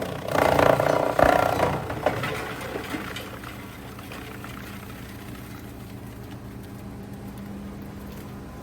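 Vecoplan wood chipper-shredder chewing through wood offcuts, loud and uneven for the first couple of seconds. It then runs on empty with a steady hum.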